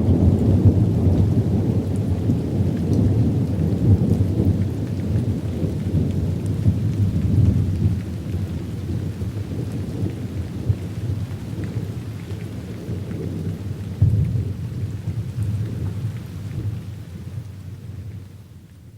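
Rolling thunder rumbling low over steady rain. The rumble slowly weakens, swells once more about two-thirds of the way through, then fades away near the end.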